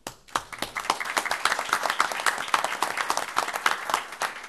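A room audience applauding, many hands clapping; the applause starts suddenly and keeps up steadily.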